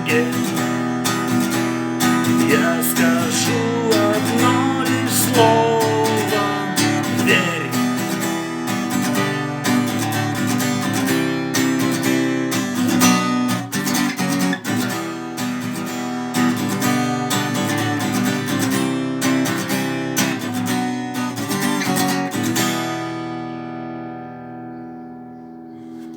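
Acoustic guitar strummed in a steady rhythm through the closing instrumental bars of a song. About 23 seconds in the strumming stops and the last chord rings out and fades.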